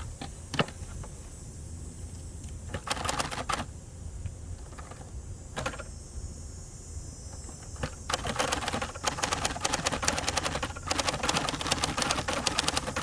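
Keys of a 1967 Hermes 3000 manual typewriter striking the platen: a few scattered keystrokes and a short quick burst about three seconds in, then steady fast typing from about eight seconds on.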